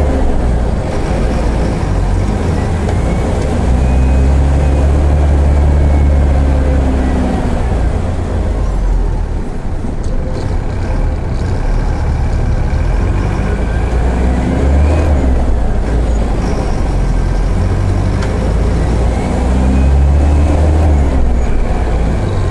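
Mercedes-Benz OF-1418 bus diesel engine pulling under acceleration, its revs climbing and dropping back several times as it is driven through the gears. A thin higher whistle rises and falls with the revs.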